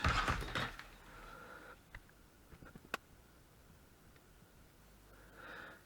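Quiet room with a few faint small clicks, one sharper click about three seconds in.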